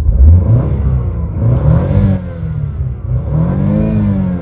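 Car engine revved several times while parked, its pitch rising and falling with each blip of the throttle, the last rev climbing high near the end.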